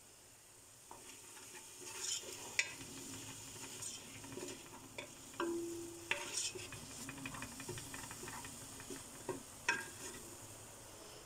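Wooden spatula stirring and scraping chopped tomatoes and ground spices around an aluminium pot, over a light sizzle as the mixture fries. The stirring starts about a second in, with a few sharper knocks of the spatula against the pot and a brief squeak near the middle.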